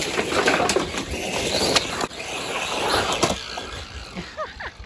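1/10-scale Losi Baja Rey RC truck driving across gravel: a rough crunching of stones under its tyres with sharp clicks of flung stones, dying down about three seconds in. A few short chirps come near the end.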